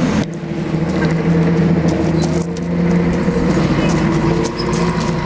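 Bus engine running steadily at a low, even pitch under a haze of road noise, with a few faint clicks.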